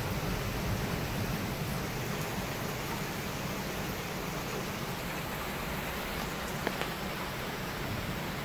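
Rain falling steadily, an even hiss with no let-up, and a faint tick a little past two-thirds of the way through.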